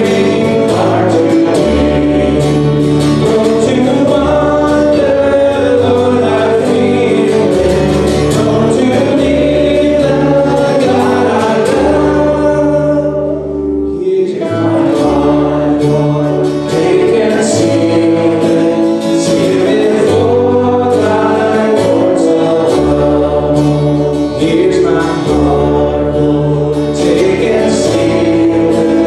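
Christian worship song: voices singing a melody over band accompaniment with a steady bass line and regular percussion hits, with a short break in the music about halfway through.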